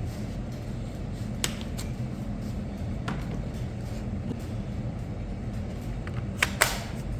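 Sharp metallic clinks of hand tools and bolts: one about a second and a half in, a couple of fainter ones, then a louder pair close together near the end. A steady low shop hum runs underneath.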